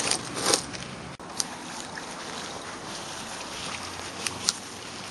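A steady rushing noise with a few short, sharp clicks, one near the start and a pair near the end, and a brief dropout about a second in.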